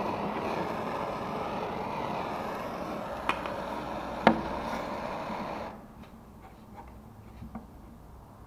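Handheld gas blowtorch flame hissing steadily while wood is flame-aged, stopping abruptly about six seconds in as the torch is shut off. Two sharp clicks a second apart just before, the second the loudest sound.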